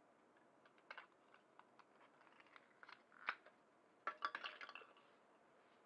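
Small plastic parts of a mini RC hovercraft being handled: faint scattered clicks and taps, with a louder cluster of clicks and rattles a little past four seconds.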